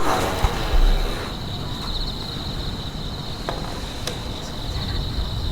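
A steady, high, finely pulsing cricket-like trill over a low rumble, with a thump about a second in.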